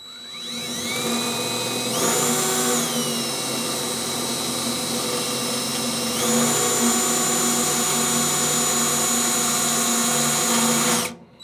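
Cordless drill running a twist bit into the steel wall of an offset smoker, boring a pilot hole. The motor whine rises over the first couple of seconds, changes pitch a few times, and stops just before the end.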